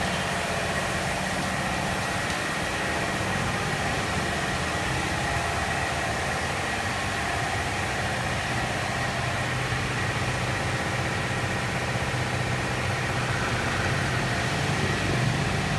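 A car engine idles steadily under a constant hiss.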